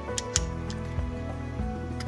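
Background music with held tones and a steady beat, with a few sharp clicks over it.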